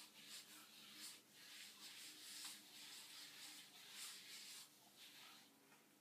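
Faint rustling and rubbing of gloved hands working hair dye through thick, curly natural hair, in irregular strokes, over a low steady hum.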